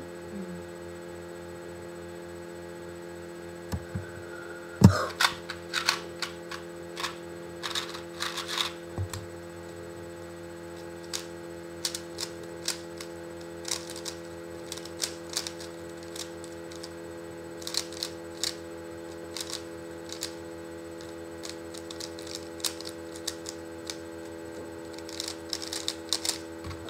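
Rubik's cubes being turned fast in a speedsolve: irregular flurries of plastic clicking and clacking over a steady electrical hum, with one sharp knock about five seconds in.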